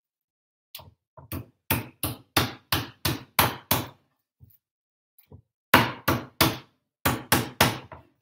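A meat tenderizer pounding raw chicken slices on a wooden cutting board: a run of sharp thuds, about three a second, then after a short pause two more runs of three blows each, flattening the meat for escalopes.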